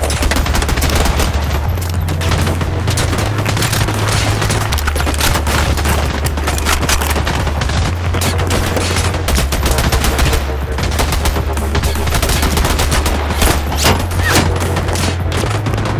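Sustained firefight: dense, overlapping gunfire from several guns, with shots coming rapidly and without a break. A low steady rumble runs underneath.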